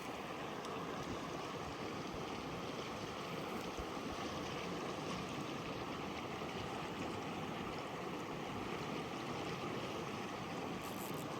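Steady rushing of a mountain stream, an even, unchanging wash of water noise.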